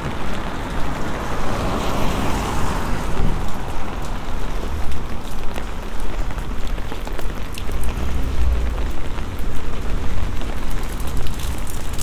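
Steady rain on a wet town street: an even hiss with scattered ticks of drops and a low rumble underneath. About two seconds in the hiss swells and fades as a vehicle passes on the wet road.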